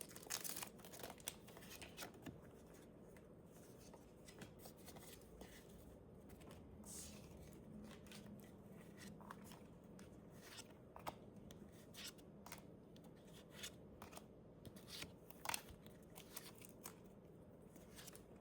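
Faint rustles and soft clicks of a trading-card booster pack being opened and its cards handled and flipped through, a little busier in the first couple of seconds.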